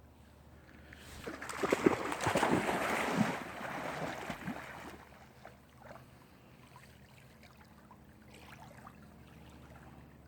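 Water splashing and sloshing as a Chesapeake Bay Retriever swims, loudest about two seconds in and dying away after about five seconds to a faint lapping.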